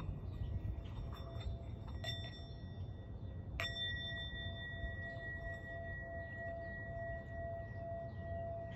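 A bell-like ringing tone struck twice, about two and three and a half seconds in. The second strike is louder and rings on steadily.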